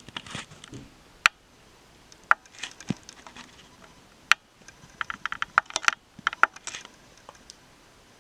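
Handling noise: scattered sharp clicks and light taps, with a quick run of clicks between about five and seven seconds in.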